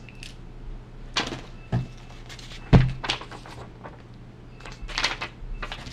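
Handling noise at a table: a few scattered knocks and rustles, the loudest a dull thump about three seconds in.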